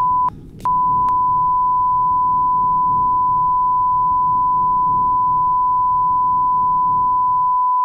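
Broadcast test tone, the steady 1 kHz reference beep played with SMPTE colour bars. It drops out briefly just after the start and clicks back in, then holds unbroken until it cuts off suddenly, with a low rumble of noise underneath.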